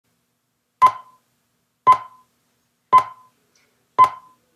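Film-leader countdown beeps: four short, identical beeps, one each second, each starting with a sharp click.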